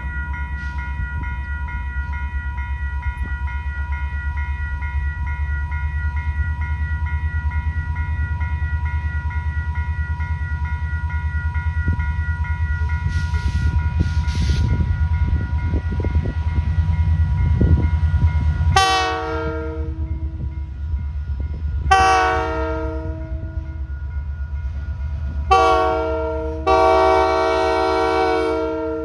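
Railroad crossing bell ringing steadily while a Canadian Pacific diesel locomotive's low engine rumble grows as it approaches. From about two-thirds of the way in, the locomotive's horn sounds the grade-crossing signal: two long blasts, a short one, then a long one still sounding at the end.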